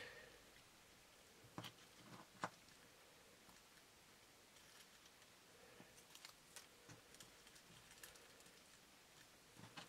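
Faint crackles and rustles of dry leaf litter as fingers pick through it in a small plastic cup, with a few sharper clicks about one and a half to two and a half seconds in.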